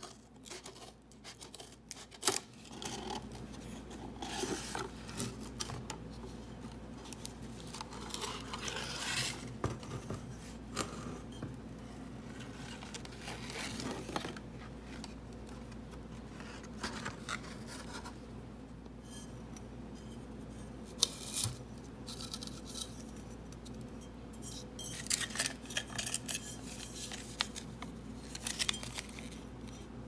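Scissors snipping through a cardboard grow-kit sleeve, then irregular rustling and scraping of packaging and a dry coir soil disc, with light knocks of a ceramic pot as it is handled.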